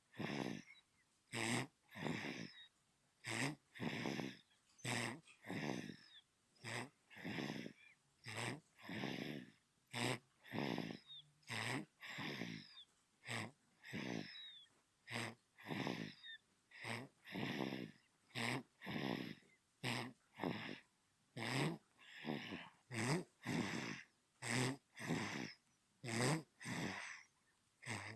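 Newborn baby snoring in its sleep: quick, regular snoring breaths, about two a second.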